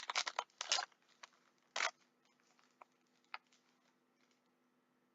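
A pack of football trading cards being opened by hand: a quick run of crinkling rustles in the first second, another rustle and a few light clicks over the next couple of seconds, then near silence.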